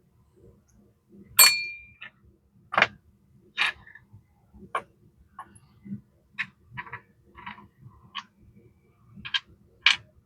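Small metal parts of a disassembled Vibroplex semi-automatic telegraph key being handled and set down on a workbench: irregular light clicks and clinks. One louder clink about a second and a half in rings briefly.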